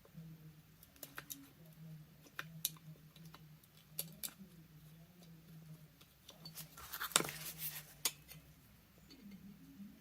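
Brass screws and metal parts of a miner's safety lamp being handled and started by hand: scattered light clicks and taps, with a louder cluster about seven seconds in, over a low steady hum.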